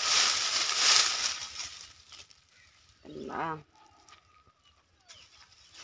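Dry leafy branches and twigs rustling and crackling as they are pulled and handled, loud for about the first two seconds. After that it goes quiet except for a brief vocal sound about three seconds in.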